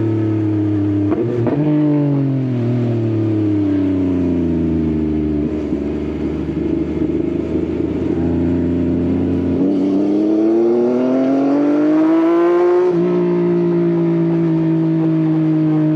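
Yamaha XSR900's three-cylinder engine through an Akrapovič exhaust, heard from the rider's seat. After a brief shift about a second and a half in, the engine note falls as the bike slows, then climbs under acceleration from about ten seconds. It drops after an upshift near thirteen seconds and holds steady.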